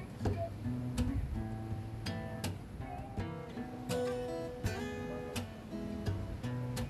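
Background music: an acoustic guitar strumming chords at a steady pace.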